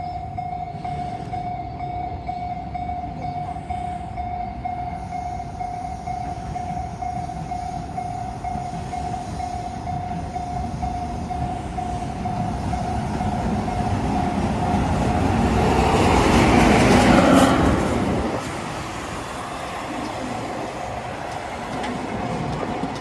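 Level-crossing alarm ringing steadily over the continuous rumble of an EF210-hauled freight train rolling past. About three quarters of the way through, the train noise swells to a loud rush, then drops off suddenly.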